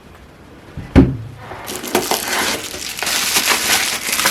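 A single knock, then packaging crackling and crinkling continuously as it is handled and unwrapped.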